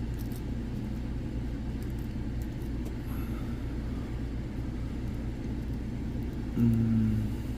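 A steady low rumble, with a few faint clicks from lock picks working the re-pinned Segal mortise cylinder about half a second in, and a short low hum near the end.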